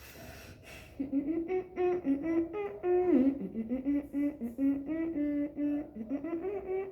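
A person humming a wordless tune, a string of short held notes moving up and down, starting about a second in.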